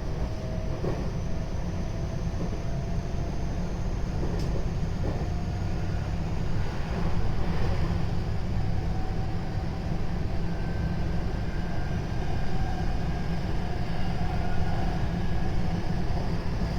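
JR West 223 series 0 subseries electric train running, heard from on board: a steady low rumble of wheels on rail, with faint thin whining tones from its Toshiba GTO-VVVF traction equipment.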